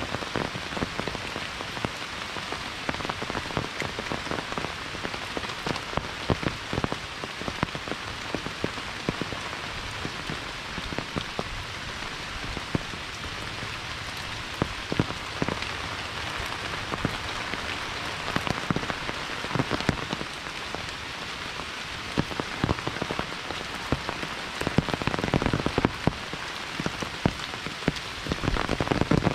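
Steady rain falling, with many close drops tapping sharply throughout.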